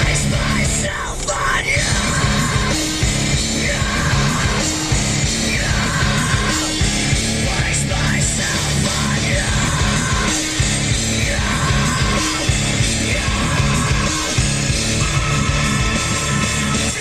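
Loud heavy rock music with shouted vocals over a driving beat.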